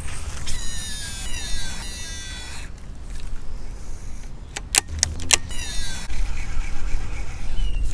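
Baitcasting reel whining as line runs off the spool on a cast, the pitch sliding down as the spool slows. It whines again near the end, with a few sharp clicks about five seconds in.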